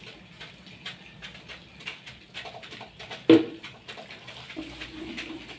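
Scattered light ticks, a single sharp knock about three seconds in, and a low cooing bird call near the end.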